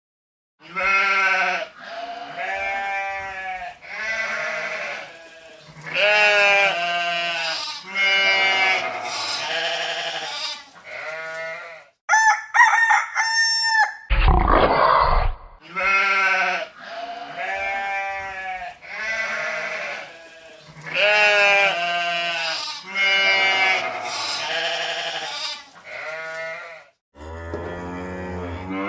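Goats bleating, call after call, each bleat wavering in pitch. Around the middle the bleats break off for a few high, quick calls and a loud low burst of noise; then a second, similar run of bleats follows, with a deeper call near the end.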